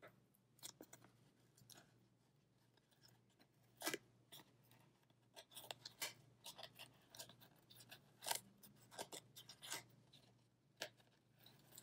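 Faint rustling and scattered light clicks as yarn warp loops are slipped off the ends of a small hand loom that is being bent to free them.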